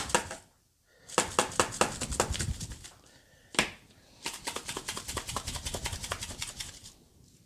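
Hand-held seasoning container being shaken or worked over a bowl: two runs of rapid sharp clicks, about eight a second, with a single louder click between them.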